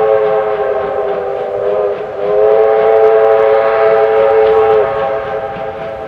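Chime whistle of an R class Hudson steam locomotive sounding two long blasts. The first ends about two seconds in, and a louder second blast stops shortly before the end, leaving the train's fading rumble.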